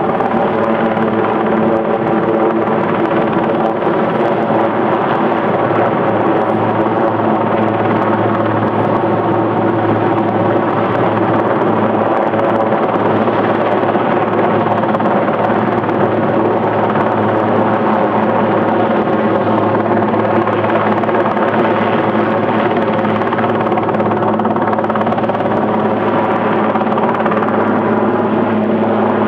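Helicopter flying overhead, its rotor and engine making a loud, steady drone with a set of constant tones.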